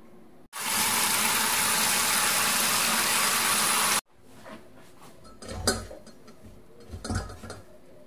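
A steady rush of running tap water for about three and a half seconds, starting and stopping abruptly. Then come a few short clatters of a plastic strainer against a steel bowl in the sink as soaked dried pollack strips are handled and squeezed.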